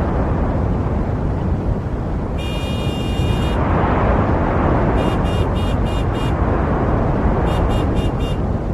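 City street traffic with a steady roar of passing cars. About two seconds in, a car horn gives one long honk of about a second. Horns then beep in quick short toots, five in a row and later four more.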